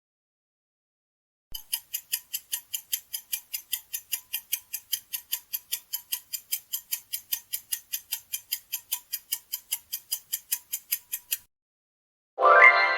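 Countdown clock-ticking sound effect, even ticks about four a second for around ten seconds, marking the time to guess. It stops, and a louder musical sound starts near the end.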